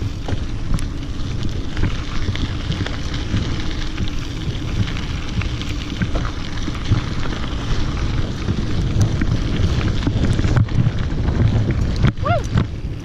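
Wind buffeting the microphone over the crunch and rattle of a mountain bike's wide, knobby tyres rolling fast on a gravel dirt trail, with a short chirp near the end.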